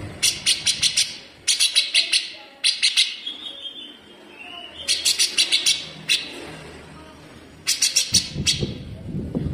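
Cucak jenggot (grey-cheeked bulbul) giving fast, harsh rattling bursts of clicking notes, about five to eight notes per burst with short pauses between. A low rumble of background noise comes in near the end.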